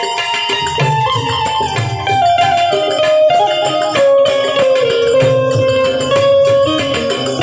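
Instrumental break in a Gujarati devotional folk song (bhajan), with no singing. A held melody line moves in steps over a hand drum and jingling tambourine-like percussion.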